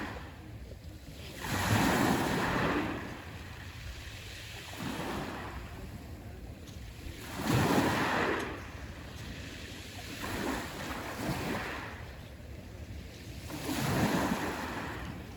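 Black Sea waves breaking on the shore, each wave rising into a wash of surf and falling back every few seconds. The three biggest break about six seconds apart, with smaller ones between them.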